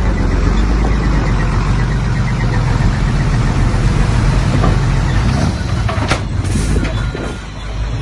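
Small dump truck's engine running steadily while its raised bed tips out a load of rocky soil, with a couple of short, sharp noises about six seconds in. The engine sound eases near the end.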